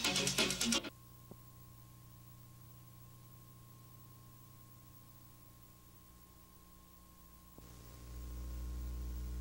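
Music with drums cuts off about a second in, leaving a faint, steady electrical hum made of several even low tones. The hum grows louder about eight seconds in.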